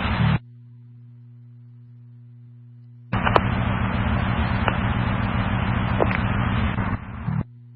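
Radio scanner audio: a low steady hum between transmissions, then about three seconds in a radio keys up and sends about four seconds of loud rushing static with no words, cutting off abruptly.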